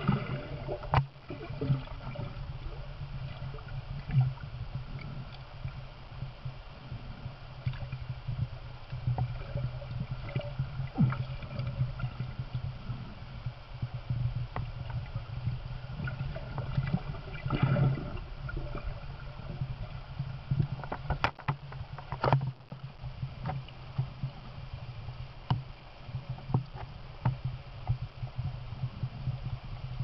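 Underwater river sound: a steady low rumble with irregular sharp clicks and ticks scattered through it, a few louder ones in the second half.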